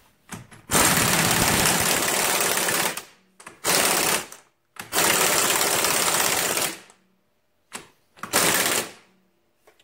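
Impact wrench with a socket running down and tightening the ATV's front axle nut in four bursts, the first and third about two seconds long and the others short, snugging the nut until the cotter key hole lines up.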